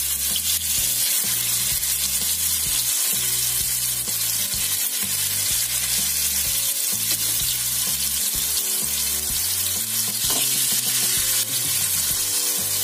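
Marinated chicken pieces frying in a thin layer of hot oil in a frying pan: a steady, even sizzle.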